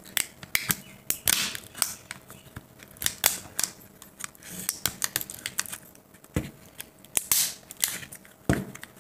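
Irregular plastic clicks, small cracks and scraping as a small screwdriver pries apart the glued seam of a laptop battery pack's plastic case. A few louder cracks come near the middle and end.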